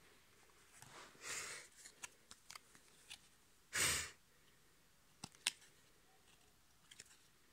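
Trading cards handled by hand: quiet rustling and sharp little clicks and snaps of card stock as cards are picked up and turned over, with one louder brief burst of noise about four seconds in.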